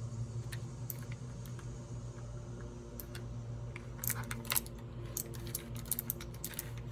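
A run of light, sharp clicks, sparse at first and then coming quickly in the second half, over a steady low hum.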